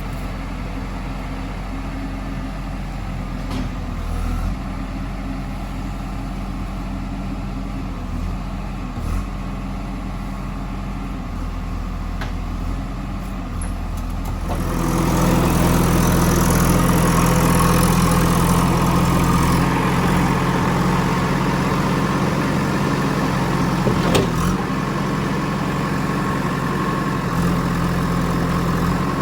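JCB 3DX backhoe loader's diesel engine running steadily at low revs, then revving up about halfway through and staying louder.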